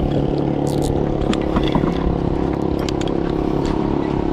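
Small boat engine running steadily at low trolling speed, with scattered clicks and knocks of handling aboard the boat.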